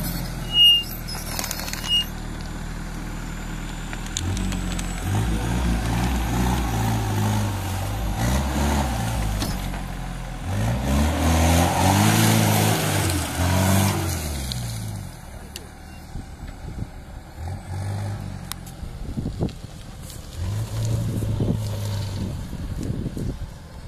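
Off-road vehicle's engine running and revving up and down under load. About halfway through there is a louder stretch of repeated rising and falling revs, then it settles lower, with a couple of short revs near the end.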